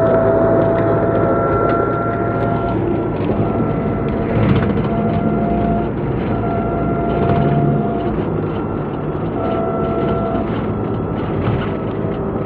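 Cabin noise of a Nissan NV350 van on the move, heard from the rear seats: steady engine and road rumble with a thin whine that comes and goes. The mechanic listening for an abnormal drone judges it gone.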